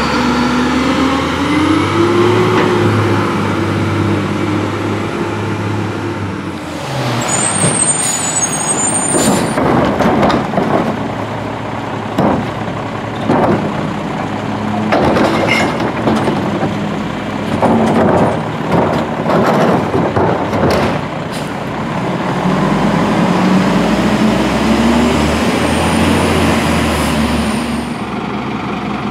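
Rear-loading garbage trucks at work: the diesel engine revs up and holds, then a run of bangs and clanks as a trash cart is tipped and emptied into the rear hopper. Near the end the engine revs up again.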